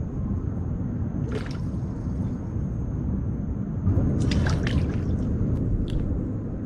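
Water splashing as a snorkeler surfaces and ducks back under, a short splash about a second in and a longer bout of splashing a little past the middle, over a steady low rumble.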